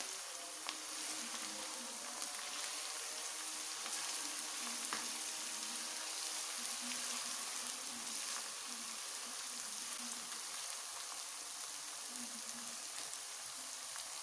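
Sliced onions and ginger-garlic paste sizzling steadily in hot oil in a karahi as they fry toward light brown, with a slotted spatula stirring and scraping through them now and then.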